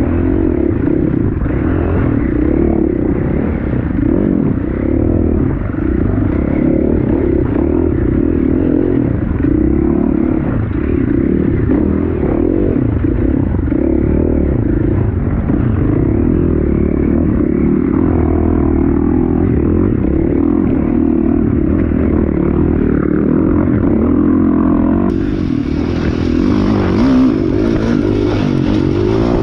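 A dirt bike's engine running loud and steady under throttle, picked up close from the bike itself, with clatter from the bike over a rocky trail.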